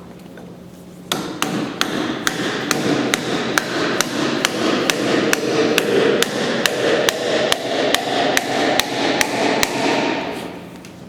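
Hammer driving a wooden treenail (peg) into a drilled hole through a timber rafter-to-column joint: a steady run of rapid blows, about four a second, starting about a second in and stopping near the end.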